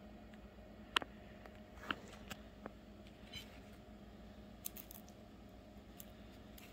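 Quiet room tone with a steady low hum, broken by a few small sharp clicks and taps. The loudest come about a second in and again just before two seconds.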